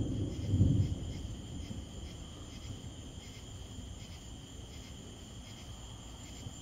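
Thunder rumbling low and dying away about a second in, then a steady chorus of night insects chirring with a constant high tone.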